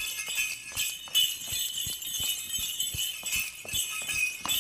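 Bells on a dancer's regalia jingling in a quick, steady rhythm as he dances steps imitating a horse's gaits, with light thuds of his feet on the floor.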